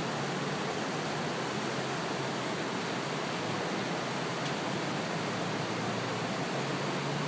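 Fast, swollen floodwater rushing in a creek in flood: a steady, even rush of water with no breaks.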